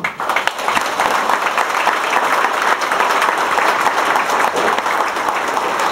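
A large seated audience applauding: many hands clapping in a dense, steady patter that starts right at the beginning and keeps on evenly.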